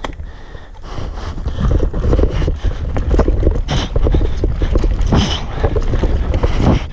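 Norco Range enduro mountain bike clattering down a rough, rooty dirt trail at speed: a rapid, irregular rattle of tyres, chain and frame over roots, with wind rumbling on the camera microphone. It grows louder about a second in as the bike picks up speed.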